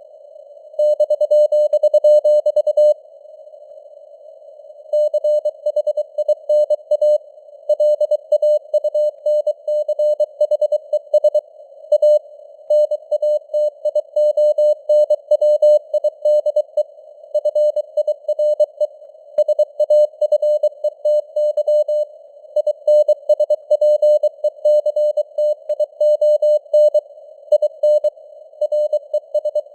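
Morse code (CW) sent at 23 words per minute as a single tone of about 600 Hz, keyed on and off in quick dots and dashes over a narrow band of simulated radio hiss. The keying stops for about two seconds near the start, then runs on.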